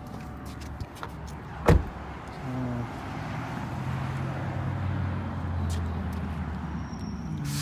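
A car door shuts with one loud thud about two seconds in. After it comes a low, steady rumble with a hiss over it that swells for several seconds.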